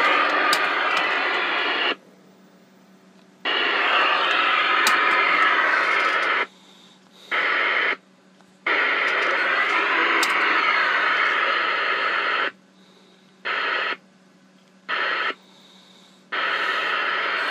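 President Lincoln 10-metre transceiver's speaker playing received signal: hissy, garbled bursts that cut in and out abruptly about seven times, with quiet gaps between them over a faint steady hum. The radio is receiving again after its repair.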